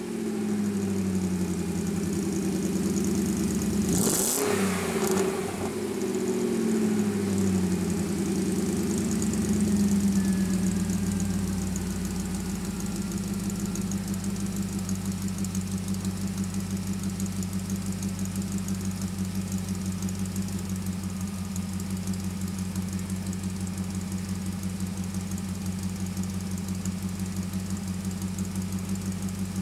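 BMW E38 740iA's M62B44 4.4-litre V8, exhaust running with the rear mufflers removed: revved up and down several times, then settling about twelve seconds in to a steady idle.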